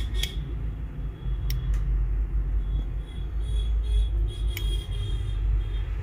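Steady low rumble, with a few light clicks scattered through it, typical of metal tools ticking against a circuit board during soldering.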